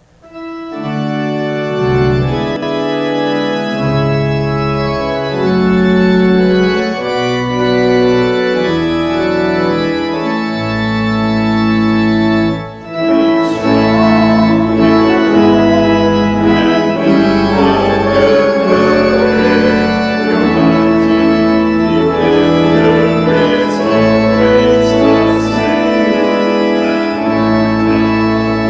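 Church organ playing sustained chords over a moving bass line. There is a brief break about 13 seconds in, after which the playing becomes fuller and busier.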